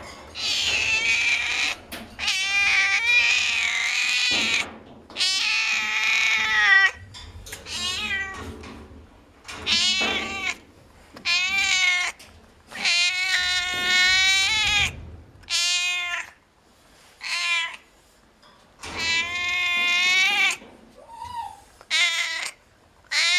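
A seal-point longhaired cat meowing and yowling loudly, again and again: about a dozen drawn-out calls, each a second or two long, with short pauses between.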